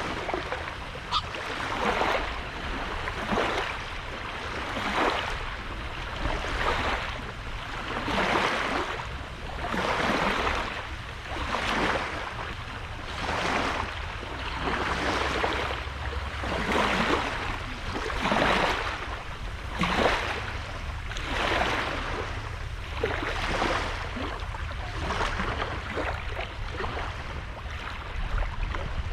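Sea waves washing onto the beach, one surge after another about every one and a half to two seconds, each swelling and falling away, over a steady low rumble.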